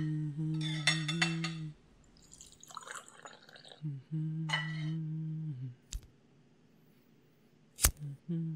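A low hummed tune in short phrases of a second or two, over clinks of steel pots and utensils and a brief splash of water. Near the end come two sharp clicks of a gas stove's igniter as the burner lights.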